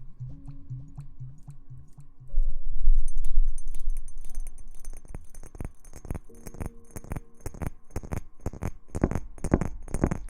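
Close-miked ASMR rustling: a loud low rumble starts about two seconds in, then a run of sharp crackling clicks grows denser and louder. Faint background music plays under it.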